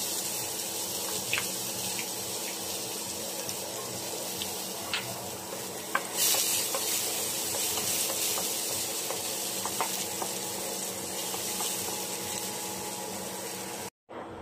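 Chopped garlic and onion sizzling in hot oil in a stainless steel pan, stirred with a wooden spoon that clicks against the pan now and then. The sizzle flares louder briefly about six seconds in.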